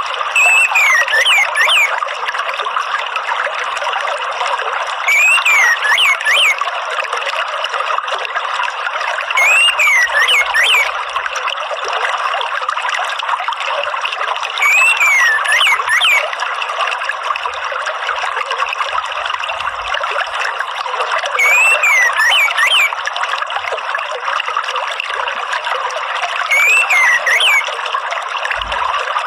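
Steady trickling water, with a short gliding bird call repeated about every five seconds, six times in all.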